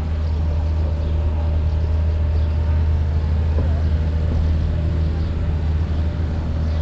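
A large engine running steadily, a deep even drone with a faint higher hum.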